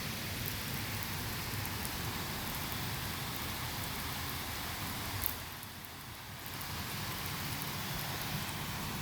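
Heavy rain pouring steadily, briefly a little quieter about six seconds in.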